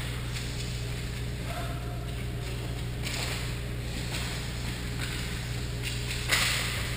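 Indoor ice rink during a hockey game: a steady low hum with faint distant voices, then a sudden sharp scrape about six seconds in, such as a skate cutting the ice near the goal.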